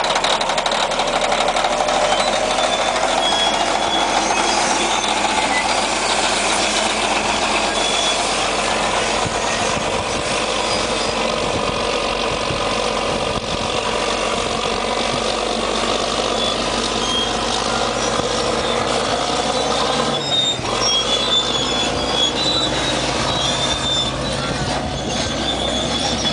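Caterpillar D9H crawler bulldozer running, with high-pitched squeals from the moving machine.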